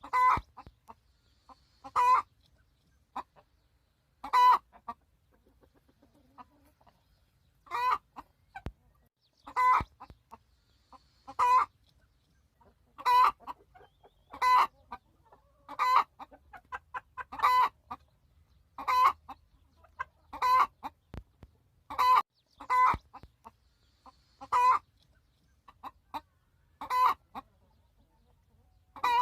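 Hen giving loud, repeated screeching squawks, one every couple of seconds: a hen complaining that her nest has been taken over.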